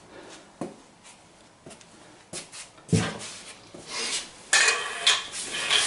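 Tools and materials being handled and set down: a few light knocks, then clattering, scraping and rustling that grows louder from about three seconds in.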